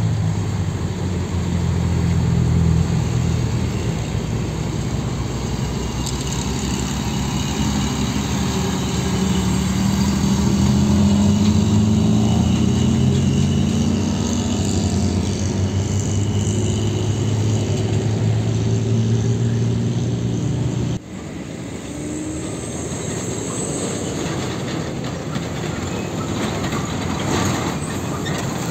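Heavy diesel trucks driving past, their engines pulling hard, with the engine pitch rising as they accelerate. About two-thirds of the way in the sound cuts abruptly to quieter passing traffic.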